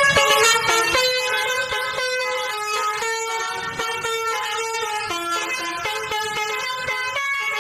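Bus basuri (telolet) musical air horn playing a tune: a run of loud, sustained horn notes that step up and down in pitch.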